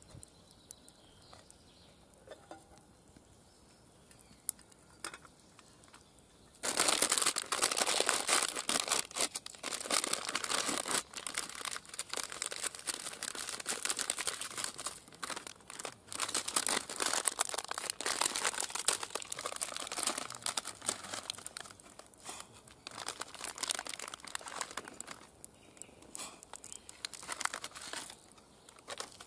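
Plastic instant-noodle packet crinkling as it is opened and handled. The crinkling starts several seconds in and goes on in dense sharp rustles, thinning near the end.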